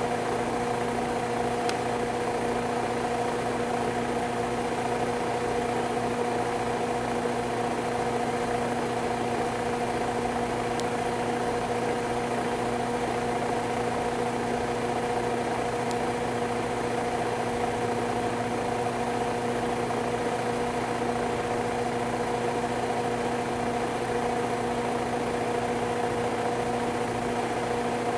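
A steady machine hum of constant pitch, with several held tones over a low rumble that never changes.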